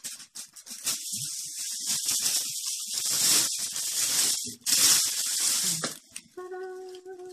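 Tissue paper rustling and crinkling as it is pulled out of a cardboard box and handled, in two long stretches. Near the end a steady held note begins.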